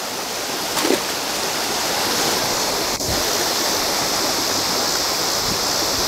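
Creek water rushing over rocks close by: a steady, even rush of fast-flowing current.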